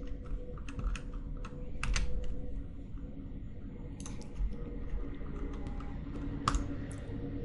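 Scattered clicks of a computer mouse and keyboard keys, irregular and a second or so apart, a few coming in quick pairs, over a low steady hum.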